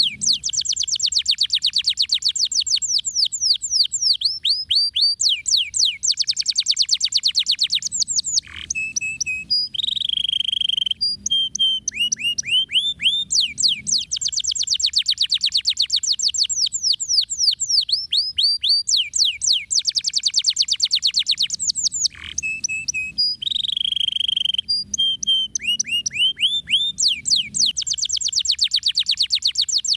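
Domestic canary singing without a break in fast rolling trills of quick downward-sweeping notes, broken now and then by short lower, steadier phrases. The same sequence of phrases comes round about every 14 seconds.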